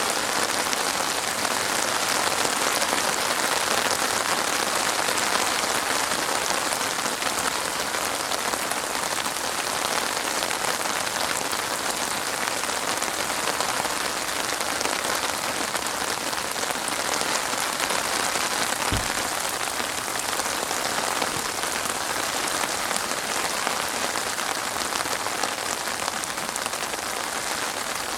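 Steady rain falling, an even, unbroken wash of sound, with one brief low thud about two-thirds of the way through.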